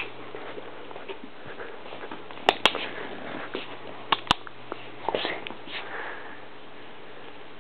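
Perro de Presa Canario sniffing in short puffs close to the microphone, with two pairs of sharp clicks near the middle.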